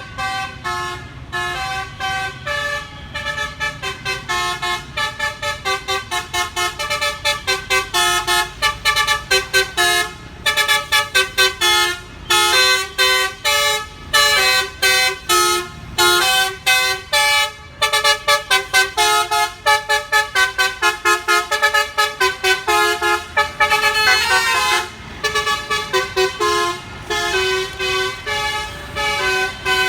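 Telolet 'basuri' bus horn, a multi-trumpet electric air horn, playing a long, fast melody of short pitched notes one after another.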